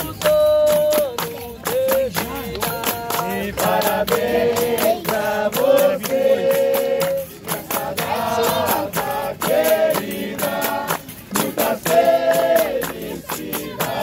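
Capoeira roda music: voices singing a capoeira song over steady hand clapping and the beat of pandeiros.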